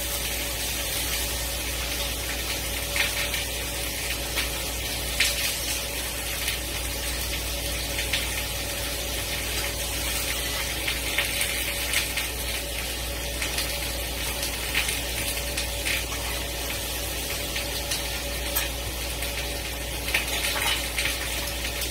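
Butter melting and sizzling in a hot cast-iron skillet around seared pork chops: a steady hiss with scattered crackles and spits, over a steady low hum.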